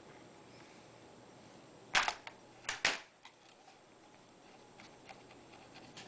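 Plastic bottom cover of an Acer Aspire One D255 netbook snapping free of its clips. There is a sharp crack about two seconds in, two quicker clicks just after it, then a few faint ticks.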